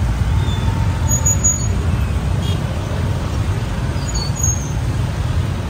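Steady street traffic rumble, with a few faint, short, high-pitched squeaks over it.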